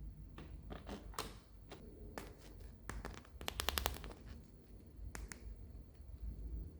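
A series of sharp plastic clicks and taps from a toy or its packaging being handled, with a quick run of about half a dozen clicks a little past halfway.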